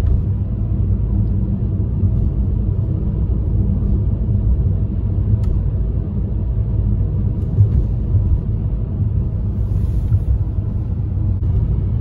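Car driving on a paved road, heard from inside the cabin: a steady low rumble of road and engine noise at cruising speed.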